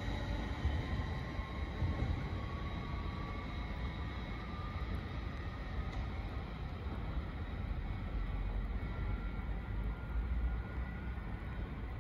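Stadler FLIRT electric multiple unit accelerating away: its traction motors give a faint whine that rises slowly in pitch over a steady low rumble as the train draws off into the distance.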